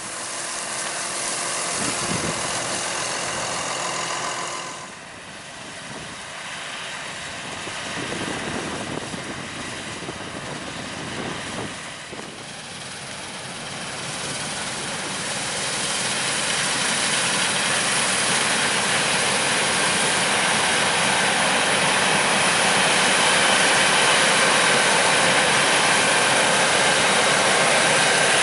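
Harvest machinery running in the field, a steady engine and machine noise that dips about five seconds in, then grows steadily louder as it comes closer.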